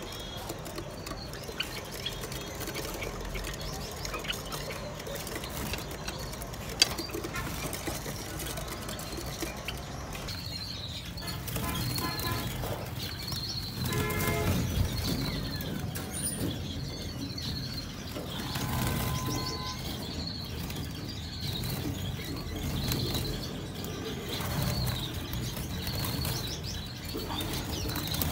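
Small aviary birds chirping in short, repeated calls, with wings flapping.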